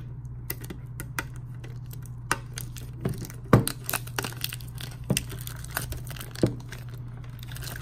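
Plastic wrapping on a metal Pokémon card tin being snipped and torn off, crinkling, with scattered sharp clicks and crackles, the loudest about three and a half seconds in. A steady low hum runs underneath.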